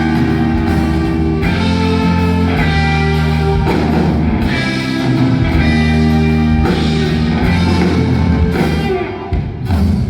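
Live rock band playing an instrumental passage between sung lines, with guitar and drums. The band drops briefly in level about nine seconds in.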